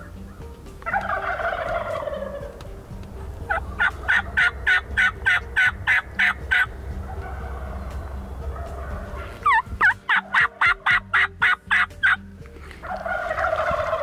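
Wild turkeys gobbling: a rattling gobble about a second in and another near the end. Between them come two long runs of sharp, quick calls at about five a second. A low steady rumble runs underneath.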